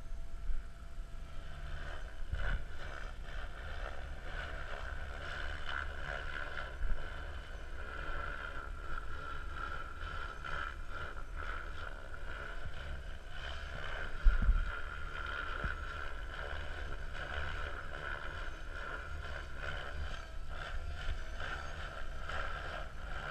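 KDS Agile 7.2 RC helicopter flying at a distance: a steady high whine from its rotor and drivetrain that swells and fades a little as it manoeuvres. Wind rumbles on the microphone throughout, with a few brief thumps from gusts.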